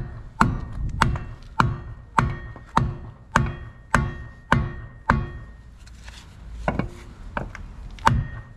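A short-handled hammer striking a pine block held against a boat propeller's hub to move the propeller on its shaft: nine even blows a little over half a second apart, a pause of about a second and a half, then several more blows near the end.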